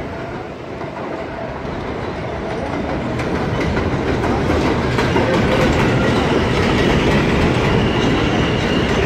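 NYC subway R160A-1 train running on elevated track, its wheels clattering over the rails. The rumble grows steadily louder as the train approaches and pulls alongside, and a faint high whine comes in near the end.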